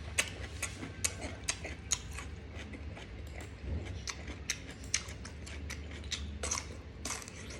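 Close-up chewing of fatty, tough grilled pork intestine: irregular wet, crunchy clicks from the mouth as it is worked over, roughly one or two a second.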